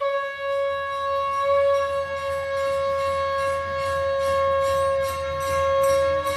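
A conch shell (shankh) blown in one long, steady note.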